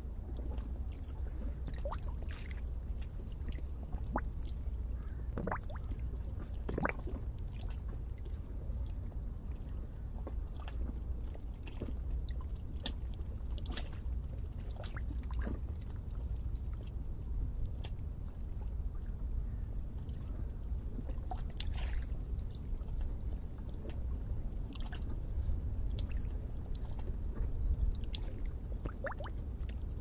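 Water bubbling at the edge of a lake: many scattered small pops and gurgles over a steady low rumble.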